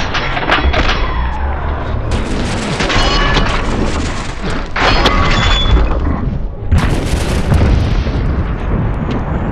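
Deep, drawn-out booming of slowed-down M134 minigun fire and bullet impacts, changing abruptly a few times, with music underneath.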